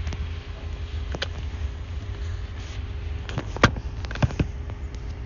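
Low steady rumble inside a car cabin with a faint steady hum, broken by a few sharp clicks and knocks about three and a half to four and a half seconds in, the loudest first.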